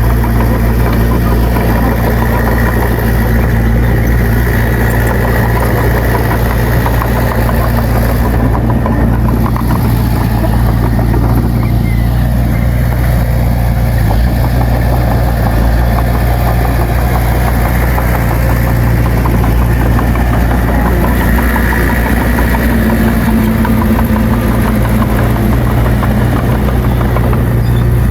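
Diesel engine of heavy earthmoving machinery running steadily with a low drone.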